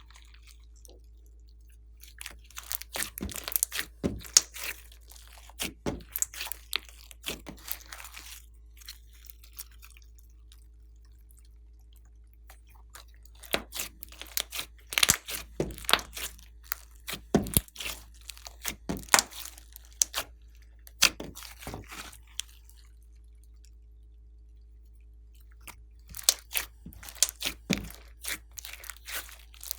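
Crunchy slime being squeezed and pressed by hand, giving quick runs of crackling and popping in three spells with pauses between.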